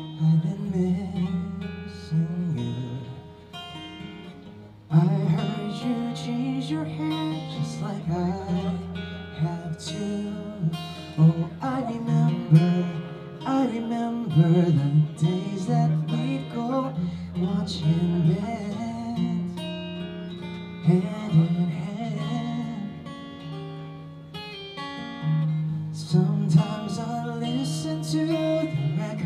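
Live acoustic pop song: a strummed acoustic guitar and a Roland FP-7 digital piano, with a man singing. It grows fuller and louder about five seconds in.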